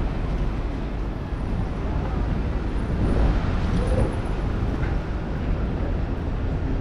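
Steady city traffic rumble, with passers-by talking faintly.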